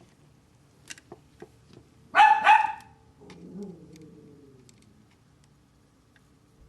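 A dog barks twice in quick succession a little over two seconds in, then gives a quieter, lower, falling call that fades out. A few faint clicks come before the barks.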